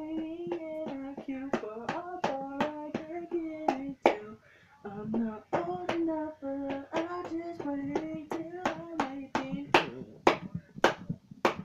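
Hands slapping out a drum beat, two to three sharp slaps a second, under a man singing the melody in held notes without clear words. Both break off briefly about four seconds in.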